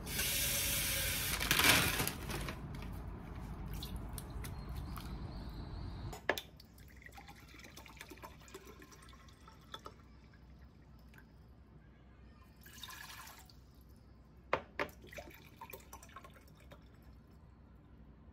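Kitchen tap running into a sink, splashing hardest in the first couple of seconds, then shut off with a click about six seconds in. After that come scattered light clicks and knocks, with a short hiss about two-thirds of the way through.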